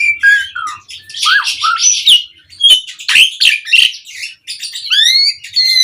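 Asian pied starling (jalak suren) in full display song, the kind keepers call 'mompa'. It gives a fast, unbroken jumble of rising and falling whistles, harsh rasping notes and sharp clicks.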